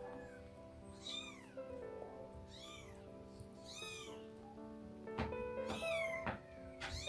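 Newborn kittens, about 20 days old, mewing over and over: thin, high-pitched cries that rise and fall, about one every second and a half. A few sharp clicks or knocks come about five to seven seconds in.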